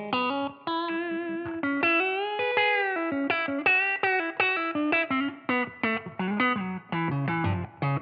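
PRS 509 electric guitar played through an amplifier: a single-note lead line of quick notes, with one note bent up and held about two seconds in.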